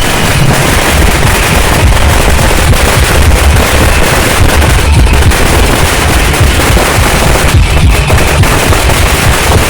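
Firecrackers going off in a dense, unbroken rapid-fire crackle, like a long chain of crackers, loud throughout.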